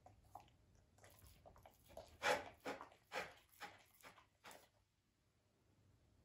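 Belgian Malinois puppy licking a plate: a run of about seven short, wet licks and smacks, about two a second, the loudest near the start of the run, stopping about four and a half seconds in.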